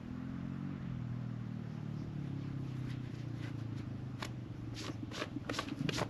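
A steady low rumble, like a distant engine. From about four seconds in, crunching footsteps on wood-chip mulch start.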